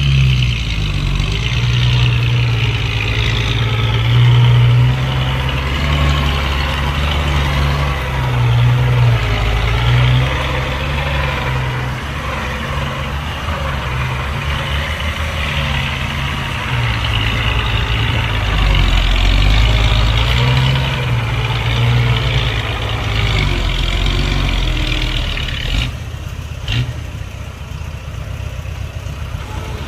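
Heavy diesel engines of a bulldozer and dump trucks working, the low engine note swelling and easing again and again as the load changes. A short, sharp knock comes near the end.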